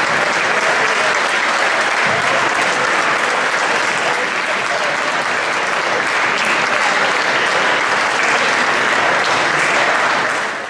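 Audience applauding steadily, fading out at the very end.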